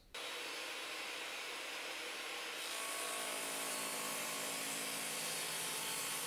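Bosch 4100XC-10 15-amp 10-inch job-site table saw running at speed with a steady whir, growing slightly louder and fuller about two and a half seconds in as an oak board is fed toward the guarded blade.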